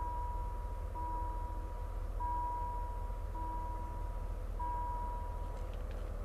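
Level crossing warning signal sounding a repeated electronic tone, about one beep a second, that stops shortly before the end. Under it runs the steady low rumble of the moving train.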